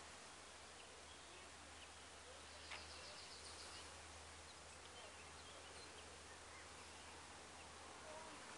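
Near silence: faint rural outdoor ambience with a few scattered faint bird chirps and a short rapid trill about three seconds in.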